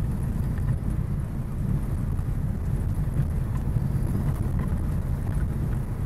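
Steady low rumble of a car driving on a narrow paved road, engine and tyre noise heard from inside the cabin.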